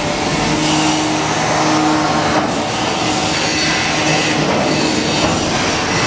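Steady, loud industrial noise around a railcar at an unloading pit, with a faint hum for the first couple of seconds.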